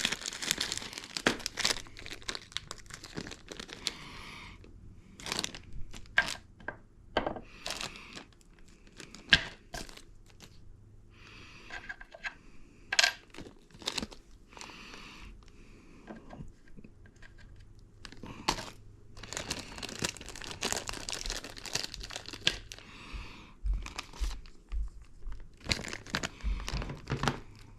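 Hands working with a ratchet and its small parts: irregular rustling and crinkling with scattered sharp clicks and knocks.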